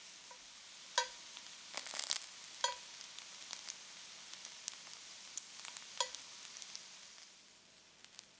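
Aubergine slices and tofu sizzling and crackling in a cast-iron skillet, with a dense burst of crackling around two seconds in. Metal tongs clink against the pan three times with a short ring: about a second in, at two and a half seconds, and at six seconds. The sizzle dies down near the end.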